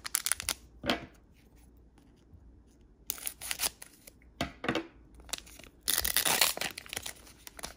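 Foil Pokémon booster pack being torn open by hand: several short crinkling rips, then the loudest and longest tear about six seconds in.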